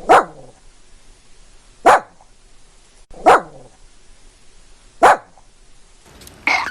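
Dog barking four times, single barks spaced about a second and a half apart, followed near the end by one more brief call.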